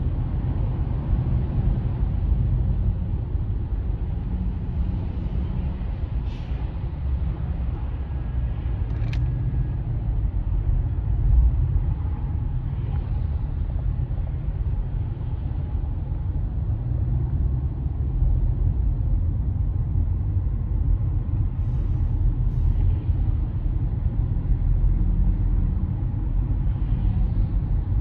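Steady low road and engine rumble heard inside a car's cabin on a freeway, with a few brief faint clicks.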